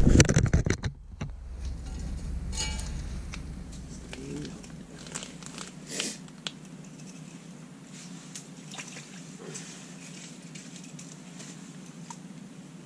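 A loud scuffing clatter in the first second as the camera is set down on the icy floor, then a low steady hum inside the tent with faint scattered clicks and rustles of someone handling fishing gear.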